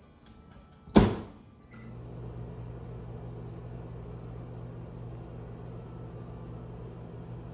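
Microwave oven door slammed shut with a single loud clack, a short beep, then the oven starts running with a steady low hum as the s'more heats.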